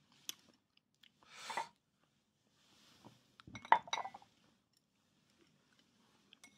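Tableware clinking as chopsticks knock against dishes and glass, with a few sharp clicks. About three and a half seconds in comes a cluster of louder clinks, one with a short ringing tone, and a brief scraping noise comes before it.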